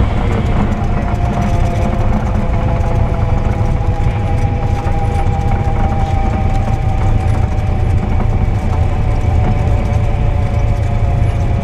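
Cessna 172 Skyhawk's piston engine and propeller running at a steady drone, heard inside the cockpit as the plane rolls along the runway.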